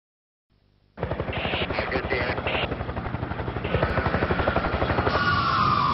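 Helicopter rotor beating in a fast, steady rhythm. A siren starts about five seconds in, its tone sliding down.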